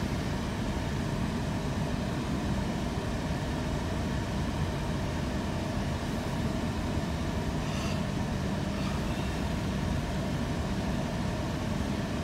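Steady cabin noise of a car driving slowly: low engine and road rumble heard from inside the vehicle.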